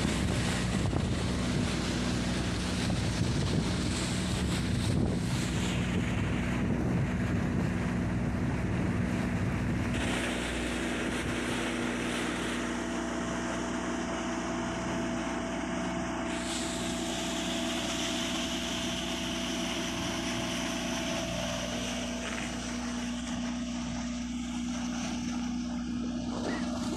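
A boat's Mitsubishi 4DR5 four-cylinder diesel engine runs steadily under way, a constant drone. Water rushes along the hull and wind buffets the microphone.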